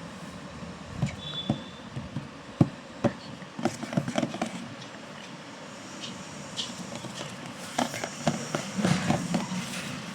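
Snack packaging being handled and opened: two bursts of crinkling and clicking, one about a second in and one near the end, over a steady background hum.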